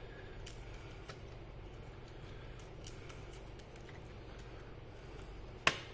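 Faint scattered ticks and taps of laptop parts being handled while flex cables are reconnected to the motherboard, with one sharp click near the end, over a steady low hum.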